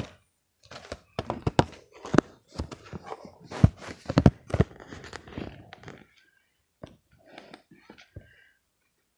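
Irregular knocks, thuds and rustling from cardboard toy boxes and the handheld phone being handled and shifted, with two louder thumps near the middle. The sounds thin out to a few faint taps after about six seconds.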